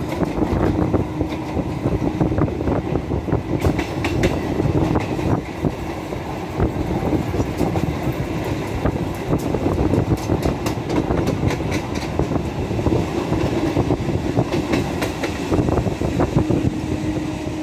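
Two electric multiple-unit (EMU) suburban local trains running side by side at speed, heard from inside one of them. There is a steady rumble of wheels on track, with repeated clicks and clatter from the wheels over rail joints and a constant hum.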